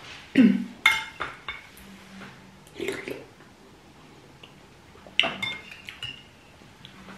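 Metal cutlery clinking and scraping against ceramic bowls and plates as someone eats, in three short clusters of clinks with a brief ring: one near the start, one about three seconds in, and one about five seconds in.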